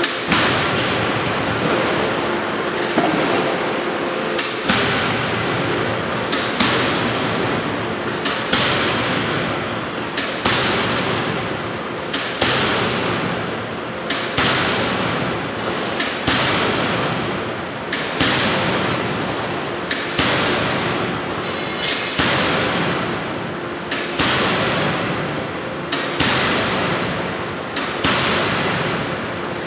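Anyang C86Y-450KJ fully hydraulic closed-die forging hammer striking hot metal in the die. One heavy blow lands about every two seconds, some fifteen in all, each followed by a long echoing tail that dies away before the next.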